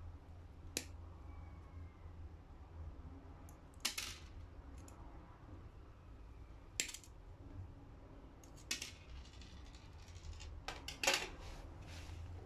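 Restored end-cutting nippers snipping through metal wire: about five sharp snaps spaced a couple of seconds apart, with a louder clatter of several clicks near the end.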